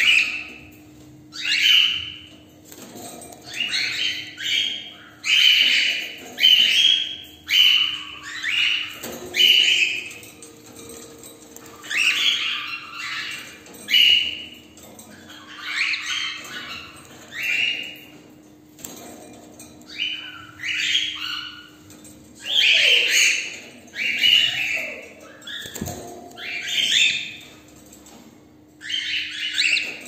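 Cockatiels in a cage calling again and again: short, high screechy calls that come in quick runs of two or three, with brief pauses between.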